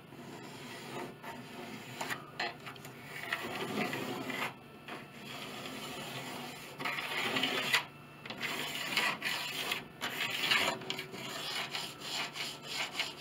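Irregular scraping and rubbing on the wood of a piano soundboard, in short uneven strokes with brief pauses.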